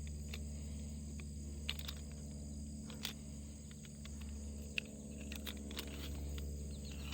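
Quiet outdoor background with a steady insect chirr and a low hum, broken by a few faint clicks and taps from handling electric-fence wire or rope at a T-post.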